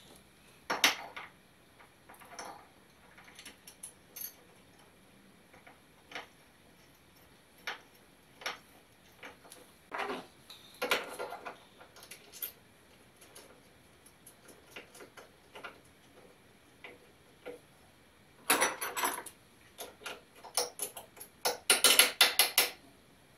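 Small steel hardware clinking and clicking by hand as a bolt and nut are fitted to a bent steel L-bracket on an aluminum plate: scattered light taps, with runs of quick metallic clicks near the end.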